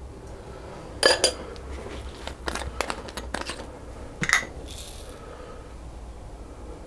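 A plastic jar of cake sprinkles being handled: a string of sharp clicks and taps, the loudest about a second in and again just past four seconds, followed by a brief rattle.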